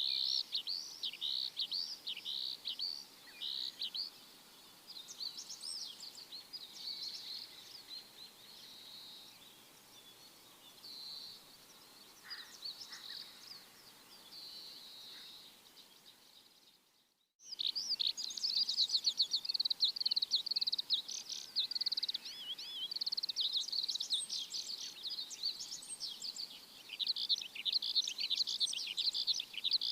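A flock of small birds chirping in quick, dense, high-pitched chatter. The chorus thins and goes quieter for a long stretch, cuts out abruptly for a moment a little past halfway, then returns loud and dense.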